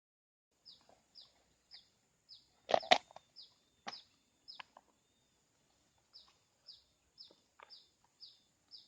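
A bird calling in short, falling chirps, about two a second, with a brief pause in the middle, over a faint steady high-pitched whine. A few sharp knocks, the loudest a quick pair about three seconds in.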